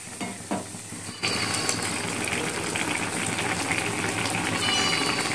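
A spatula clinks against a metal pan of vegetables. About a second in, a steady sizzling hiss starts as the milk-and-water cooking liquid bubbles around the vegetables.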